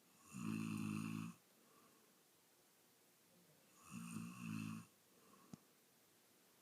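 A man snoring loudly: two snores about three and a half seconds apart, the second broken by a short catch in the middle. A brief click follows the second snore.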